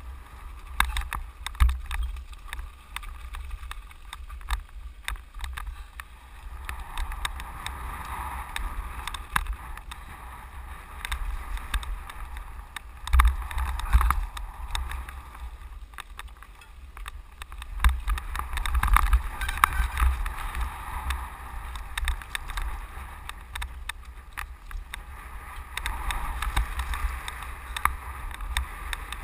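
Mountain bike riding fast down a loose gravel and rock trail: tyres crunching over gravel, the bike rattling and knocking over bumps, and wind rumbling on the microphone. The loudest knocks come a little under halfway through.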